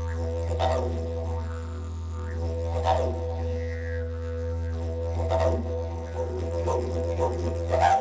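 Background music built on a steady low drone, with swells now and then, cutting off at the end.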